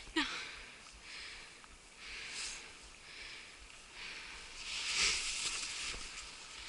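Rustling swishes of footsteps walking through tundra grass, coming in a few swells, the longest about two-thirds of the way through.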